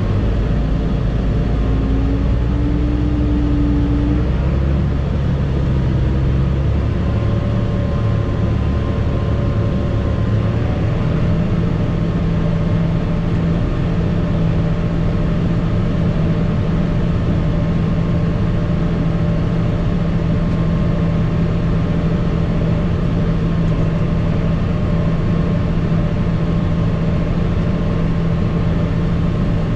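Tractor engine pulling a grain cart at a slow, steady speed. Its pitch shifts during the first ten seconds or so, then holds steady.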